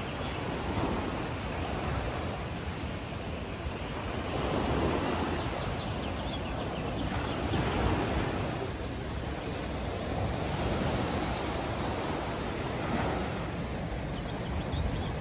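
Ocean waves washing in against a rocky shoreline: a steady rush of surf that swells and eases every few seconds.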